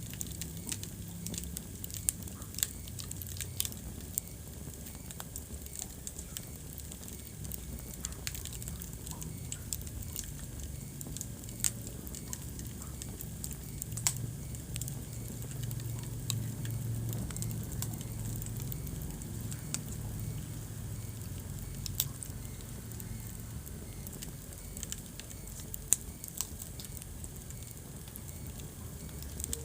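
Wood fire burning in a fireplace: a steady low rumble of the flames, with light crackling and sharp pops of burning logs scattered irregularly throughout, the loudest pop near the end.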